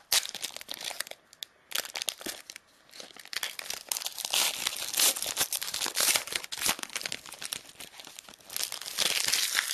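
Plastic wrapper of a sealed trading-card pack being crinkled and torn open by hand: irregular crackling and sharp crinkles, busiest in the middle and again near the end.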